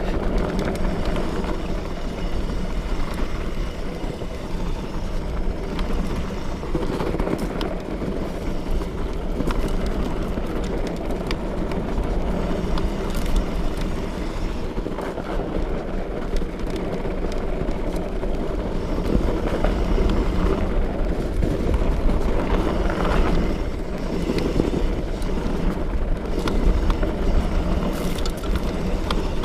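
Fat bike being ridden: a steady low rumble from the wide tyres rolling over the trail, with scattered clicks and rattles from the bike.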